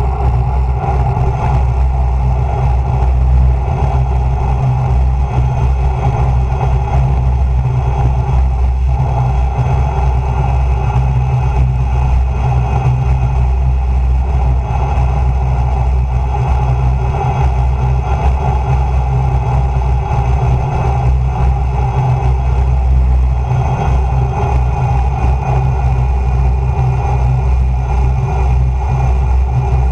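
Steady wind rush over a bike-mounted camera's microphone during a fast road-bike descent, heaviest in the low rumble, with a steady hum of tyres rolling on asphalt.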